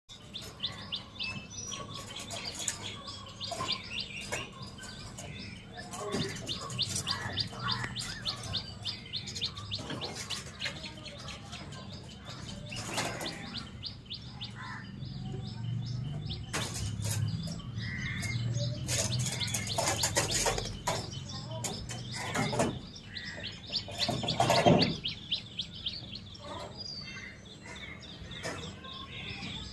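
Many small birds chirping and calling over a low background rumble, with a few brief louder noises in between; the loudest comes a little under 25 seconds in.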